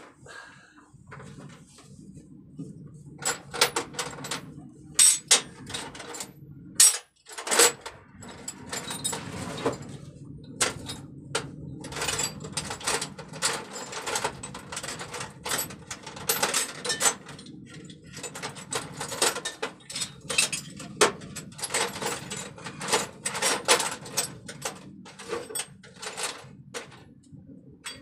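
Irregular metallic clicks, clinks and knocks of hand tools and metal fittings being handled, over a low steady hum.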